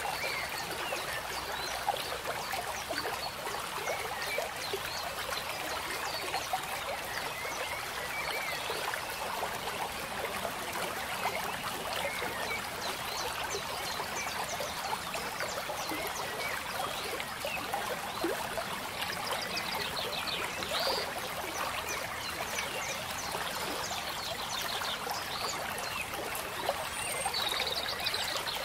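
Flowing stream, a steady rush of water, with short high chirps scattered through it and a brief trill near the end.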